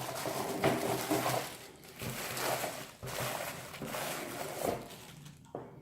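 Plastic packaging rustling and crinkling in irregular bursts as a small part is unwrapped by hand.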